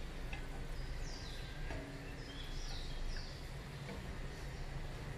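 Bird chirping in the background: short, high notes that fall in pitch, a few times, over a steady low hum. Faint knocks of a wooden spoon stirring in a stainless steel pot.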